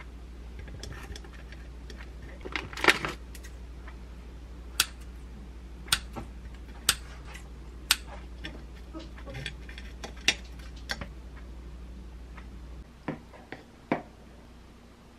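Kitchen scissors snipping dried prunes onto a plate: a series of sharp clicks roughly a second apart over a low steady hum. After a cut near the end, a fork clicks against a ceramic plate a few times.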